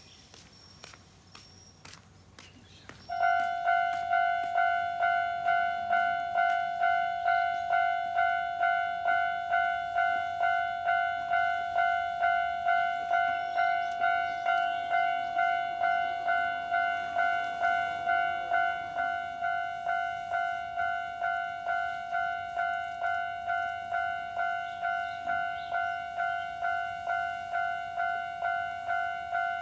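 Japanese railway level-crossing warning bell starting about three seconds in. It rings a steady electronic ding at about two strikes a second, the crossing's signal that a train is approaching.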